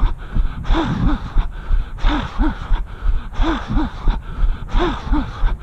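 A runner's heavy, voiced breathing close to the microphone: a pair of breaths about every second and a half, over regular low thuds of his footfalls.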